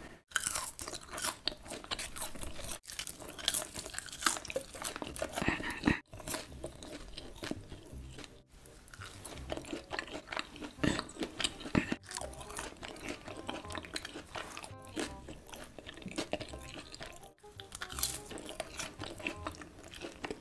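Close-miked eating: crunchy bites and wet chewing, broken off abruptly several times as short eating clips follow one another, with faint background music.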